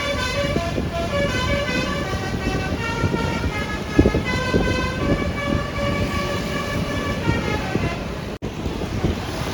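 Tour bus 'telolet' Basuri multi-tone air horn playing a stepping melody of several notes sounding together, over traffic noise. The tune cuts off abruptly a little over eight seconds in.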